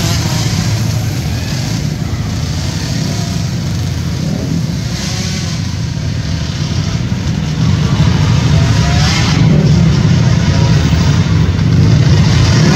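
Small 50–90cc youth ATV engines running as several quads race around a dirt track, getting louder about two-thirds of the way through.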